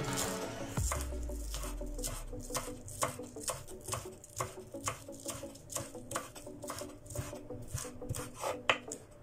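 Kitchen knife slicing spring onions on a cutting board: a regular run of short knife taps against the board, about three a second. Background music fades out about a second in.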